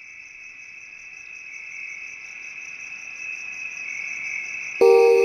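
Steady high-pitched insect chirring that grows louder. Near the end, music with bell-like mallet notes starts abruptly.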